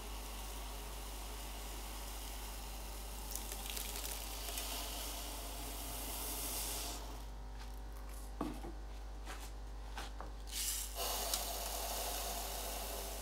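Water running into an aquarium with a steady hiss. For a few seconds past the middle the hiss drops away, and a handful of small clicks and knocks come through before it resumes.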